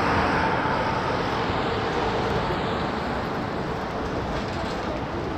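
City street traffic noise, loudest at the start and slowly fading as a passing vehicle moves away.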